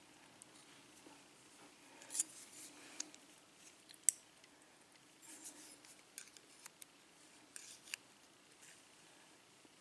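Faint, irregular small metallic clicks and scratchy scrapes of hand tools working the pins out of a Schlage KIK lock's cylinder, one sharp click about four seconds in the loudest.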